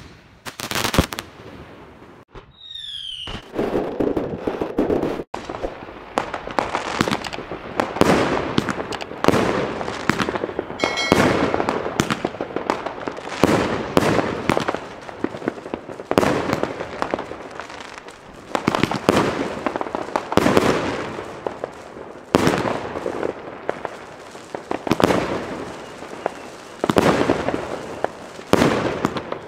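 El Gato Kamuro 25-shot 30 mm firework battery firing its shots in steady succession, about one a second, each a sharp bang that dies away.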